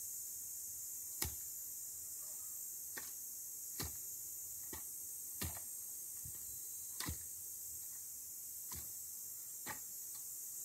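Clamshell post-hole digger blades being driven into dry, grassy soil: a series of short, sharp thuds at irregular intervals of about a second or two, nine strikes in all.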